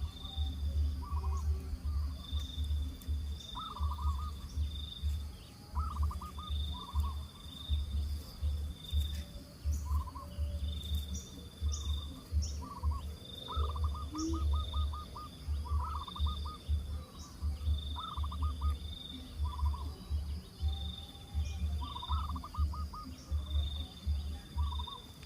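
Outdoor animal sounds: a low pulsing call repeating about twice a second, short trilling calls, and a high insect-like buzz that keeps starting and stopping.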